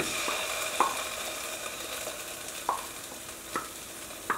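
Ground masala paste sizzling as it hits hot ghee in a nonstick kadai, with about four short scrapes of a spoon and wooden spatula against the pan as the paste is stirred in.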